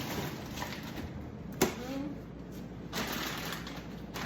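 Plastic food packaging rustling and crinkling as it is handled, with one sharp knock about one and a half seconds in.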